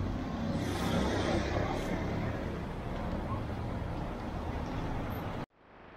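Busy street noise: vehicle traffic with voices in the background. It cuts off abruptly near the end and gives way to a quieter, steady hiss.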